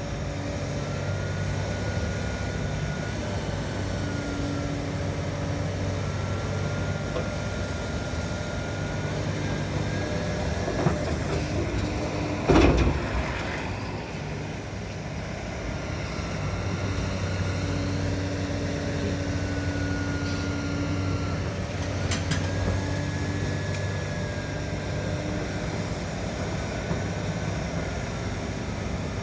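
Link-Belt 490 excavator working: its diesel engine runs steadily, swelling and easing in cycles as it takes load, with a thin hydraulic whine that glides up and down. A loud clunk comes about halfway through, and a sharper knock follows later.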